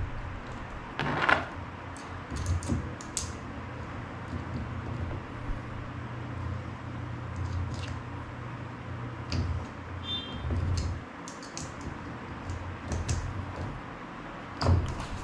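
Scattered light clicks and knocks of hands working on a suitcase wheel assembly while its axle screw is tightened, over a steady low hum.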